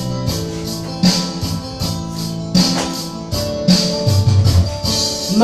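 Instrumental interlude of a karaoke-style backing track: sustained chords over a bass line, with bright percussion hits keeping a steady beat.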